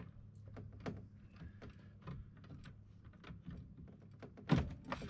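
Scattered light clicks and knocks of dredge parts (hose, jet and sluice fittings) being handled and fitted together, with one louder thunk about four and a half seconds in. A low steady hum runs underneath.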